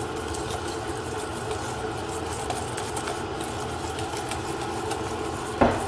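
A whisk beating egg-and-cheese cream in a stainless steel bowl, with scattered light metallic clicks, over a steady machine hum. A louder knock comes near the end.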